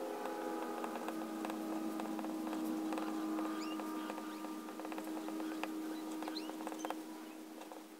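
Extra-fine steel nib of a Pilot Penmanship fountain pen scratching across Rhodia paper in quick small strokes, with a few faint high squeaks from the nib. A steady hum sits underneath and fades near the end.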